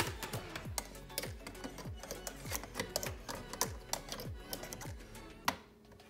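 Background music with a steady beat: deep bass notes that drop in pitch about twice a second, under quick sharp clicks.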